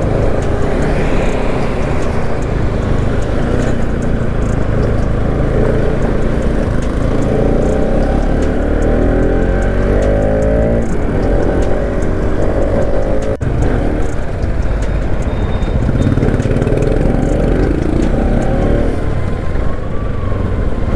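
Motorcycle engine running while riding, its pitch rising as it revs up twice, about a third of the way in and again past the middle, over a steady rumble of wind on the microphone.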